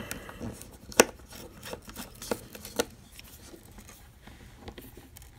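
Small sharp clicks and light taps of a screwdriver working a tiny screw out of a power bank's circuit board and plastic case, the loudest click about a second in, then two more and a few softer ticks.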